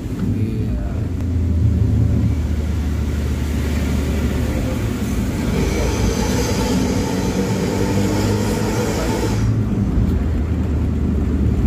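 Steady low engine drone and tyre noise heard from inside a moving vehicle on a wet road. A louder hiss joins from about five seconds in and cuts off suddenly about four seconds later.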